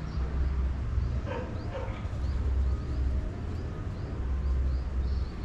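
Outdoor ambience: a steady low rumble, two short animal calls falling in pitch about a second and a half in, and small birds chirping throughout.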